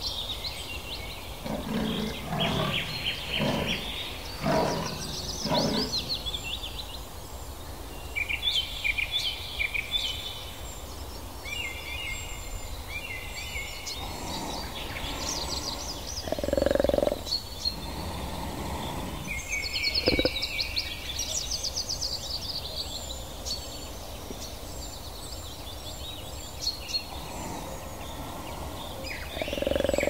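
Wildlife ambience: birds chirping and singing throughout, with a few short, lower animal calls, the clearest about halfway through and near the end.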